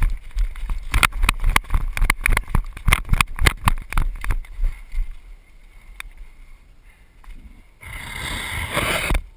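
Running footsteps on a dirt forest floor strewn with twigs, about four steps a second, that slow and fade about halfway through. Near the end comes a rough scraping rustle lasting about a second, as the runner comes up against the cover.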